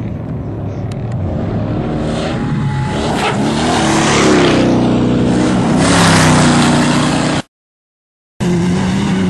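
An off-road desert race vehicle's engine comes on at full throttle and passes close by, swelling louder to a peak about six seconds in. The sound cuts out for about a second, then an engine is heard running again.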